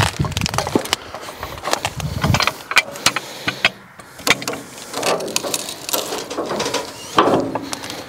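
Steel hook of a LogOX forestry multi-tool, used as a cant hook, clanking and biting into a large log, then the log knocking and scraping as it is rolled over on the sawmill's steel bed. The sound is a series of sharp knocks and clicks, with a heavier scrape about halfway through and another near the end.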